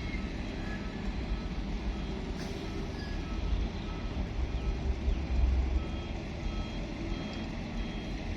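Heavy diesel engine of a Hitachi 870 excavator working, with a backup alarm beeping at a regular pace over the engine. The engine swells louder about halfway through.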